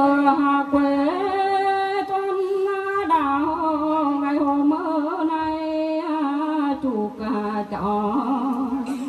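A woman singing a Mường folk song (hát Mường) unaccompanied, in long held notes that waver and step between a few pitches, with short breaks for breath.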